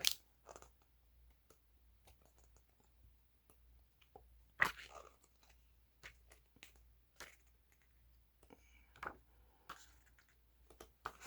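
Photo book pages being turned and handled: faint, scattered paper rustles and flicks with quiet gaps between them, a sharper flick about halfway through.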